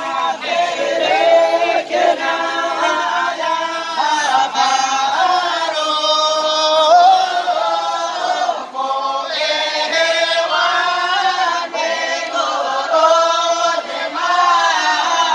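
A crowd of young men singing together in chorus, one melody carried in long held notes that glide between pitches.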